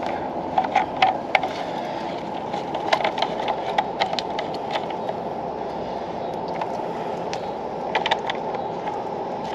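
Clicks and light knocks of a garden hose's brass fitting being handled and screwed onto the plastic inlet of a three-stage water filter housing. They come in small clusters, around the first second, again from about three to five seconds in, and briefly near the eighth second, over a steady background noise.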